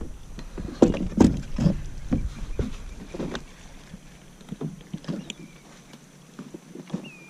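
Irregular knocks and thumps on a kayak hull as a just-landed redfish and fishing gear are handled aboard, loudest about a second in, then thinning to a few faint taps.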